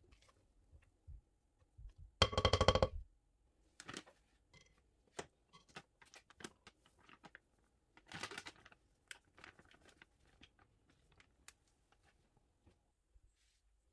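Kitchen utensils being handled: a wooden spoon knocking in a ceramic mixing bowl and a metal mesh sieve set down on it, with scattered light clicks. The loudest sound is a short rattle of rapid ticks a little after two seconds in, and about eight seconds in a brief rustling pour as icing sugar goes into the sieve.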